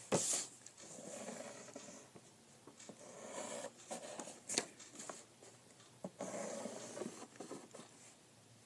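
Pen scratching across paper in a series of short drawing strokes, with a few light taps and clicks between them.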